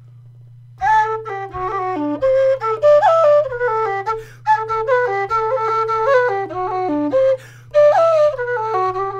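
Prototype low D Qwistle whistle with an ABS body playing a quick tune in its bottom octave, notes stepping up and down with strong upper partials, and a short break about seven seconds in. A steady low hum runs underneath.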